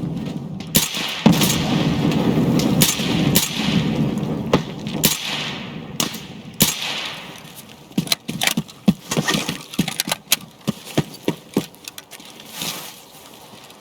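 A loud, rough rumbling noise for the first few seconds, fading, then a quick, irregular run of sharp cracks and bangs.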